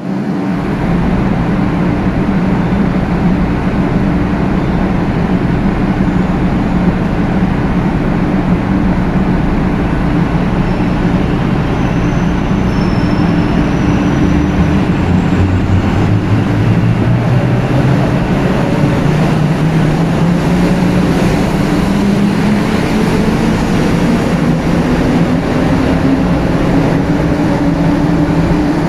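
500 series Shinkansen train pulling out of the station: a steady electric hum, then about halfway through its traction motors start a whine of several tones that rises steadily in pitch as the train accelerates away.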